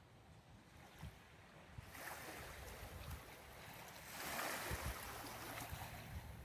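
Small Lake Superior waves washing on the shore, rising about two seconds in and swelling again a little past the middle, with low wind rumble on the microphone.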